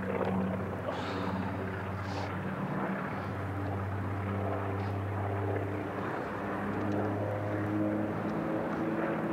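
Propeller aircraft flying over, its engine giving a steady, even drone.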